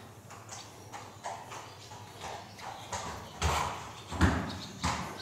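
Hoofbeats of a horse being led at a walk on arena sand footing: a run of soft, irregular steps, with three louder, heavier thuds in the second half.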